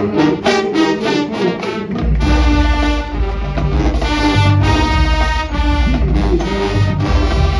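High school marching band playing: short, punched brass and drum hits, then from about two seconds in the full band holds sustained brass chords over heavy low bass.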